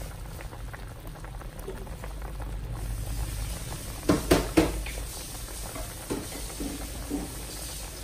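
Thick yee mee gravy boiling hard in a wok, with a steady low bubbling and scattered popping of bursting bubbles; three louder pops come close together about four seconds in.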